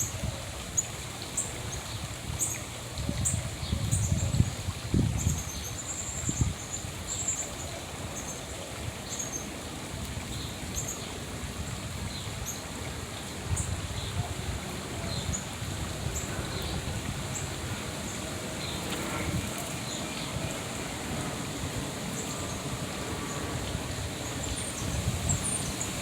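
Wild songbirds chirping: short, high chirps scattered throughout, over a low rumble that is heaviest in the first several seconds.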